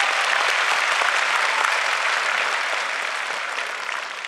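Large arena crowd applauding, a dense, steady clapping that tapers off near the end.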